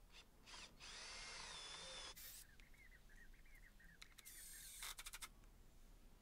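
Faint whirring of a cordless drill boring a pilot hole through the wooden frame into the chipboard, with its whine wavering as the bit cuts. Near the end a cordless impact driver runs briefly, driving a screw in.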